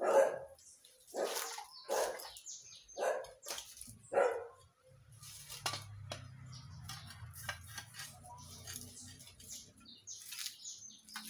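A dog barking, a string of about five barks roughly one a second over the first four seconds, then a low steady hum.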